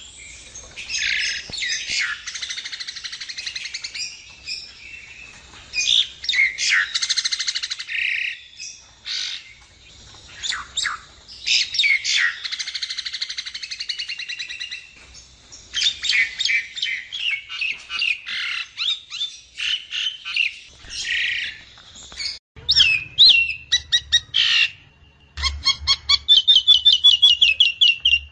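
Jalak nias myna singing a long, varied song of chattering notes, whistles and harsh squawks. Near the end it goes into a fast run of repeated short notes.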